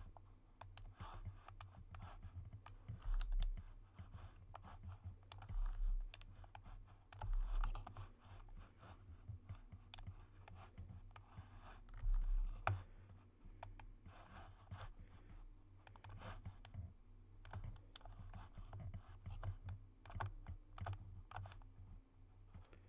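Computer mouse clicks and keyboard keystrokes at an irregular pace, from selecting and deleting parts of a model by hand, with a few dull low thumps, the loudest about twelve seconds in. A steady low electrical hum lies underneath.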